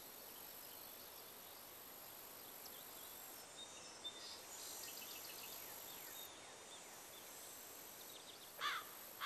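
Faint outdoor rural ambience with a few soft, high bird chirps; near the end a bird calls more clearly, a couple of short rising notes.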